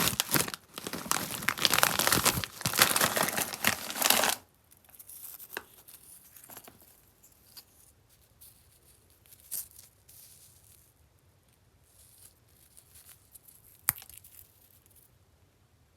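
Candy wrapper being crinkled and torn open: dense, loud crackling for the first four seconds or so, which stops abruptly. Then only faint rustles and a few small clicks, with one sharper tap near the end.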